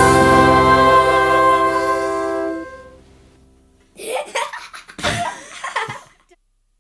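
The last chord of a Christmas song, sung by a children's choir with brass and strings, held and then fading out about three seconds in. A short burst of a child's voice follows, sounding like laughter.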